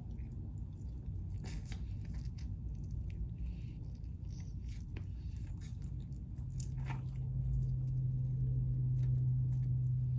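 Wet mouth sounds of biting and chewing a sauced chicken wing, with scattered short clicks and smacks. About six seconds in, a steady low hum starts and becomes the loudest sound.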